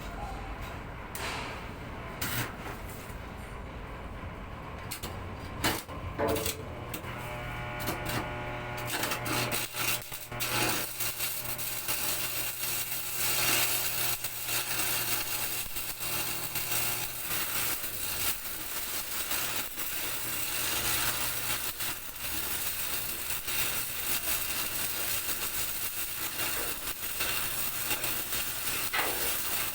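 Electric arc welding: a continuous crackling hiss of the arc, starting about nine seconds in after scattered clicks over a steady low electrical hum.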